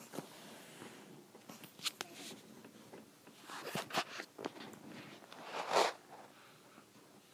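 Funny mouth noises made by a person: a string of short breathy, smacking and clicking sounds, the loudest a longer breathy burst near the end.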